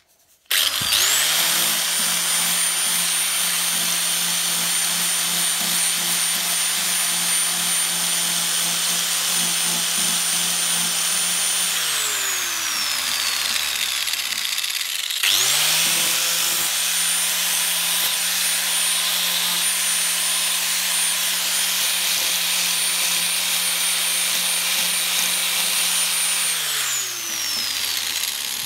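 Electric angle grinder started twice. Each time it spins up with a whine, runs steadily while grinding down a cured fibreglass-mat and resin patch, then is switched off and falls in pitch as it coasts to a stop. The grinding is flattening the repair to prepare it for body filler.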